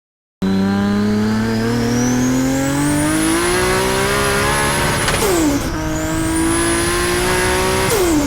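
Toyota Supra MK4's turbocharged 2JZ-GTE straight-six accelerating hard through two gears, its pitch climbing with a high turbo whistle. About five seconds in and again near the end the revs drop sharply as the throttle closes for a shift, with a burst of turbo flutter.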